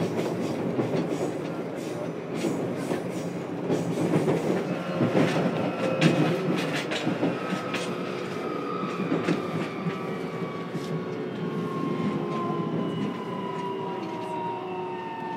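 Running noise inside a 303 series EMU motor car: the Toyo IGBT VVVF inverter whining in thin tones that fall steadily in pitch as the train slows, over the rolling rumble of the wheels, with a run of rail-joint clicks in the middle.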